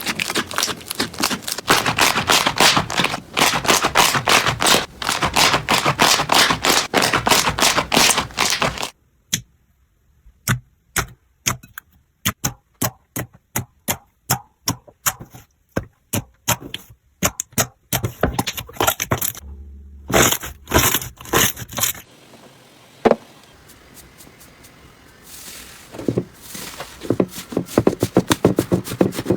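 Slime being squeezed and pressed by hand: dense crackling and popping at first, then sparser separate snaps from about nine seconds in, then softer scattered crackles over the last several seconds.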